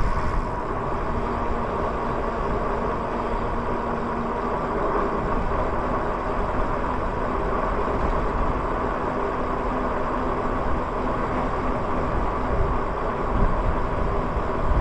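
Lyric Graffiti electric bike riding along a paved street: a steady rush of wind and tyre noise, with a faint steady hum from the drive underneath.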